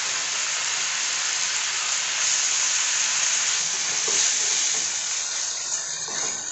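Paneer cubes sizzling as they fry in hot butter and oil in a kadai, stirred with a wooden spatula. The sizzle eases off near the end.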